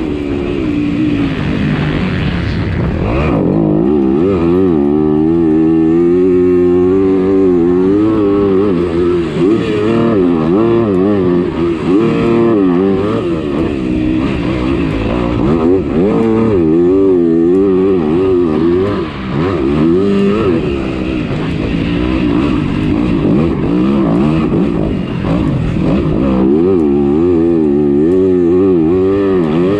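Motocross motorcycles racing, their engines revving up and dropping back again and again without a break as they ride the track.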